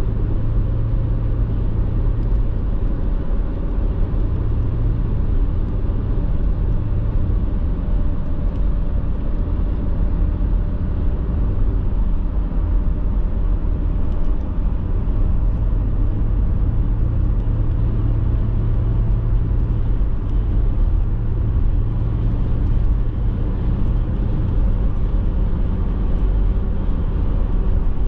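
Steady road and engine noise inside a car cruising on a multi-lane highway: a continuous low drone of tyres and engine, with a faint whine that slowly rises in pitch.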